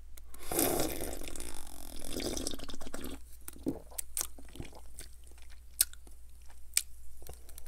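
Close-miked sipping of fizzy soda from a cup: a long sip lasting about three seconds, then scattered swallows and small wet mouth clicks.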